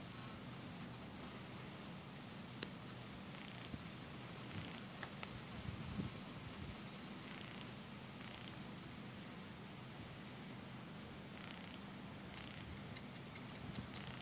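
Insects chirping in a steady, evenly repeating high pulse, with one sharp tick about two and a half seconds in and a few fainter ones later.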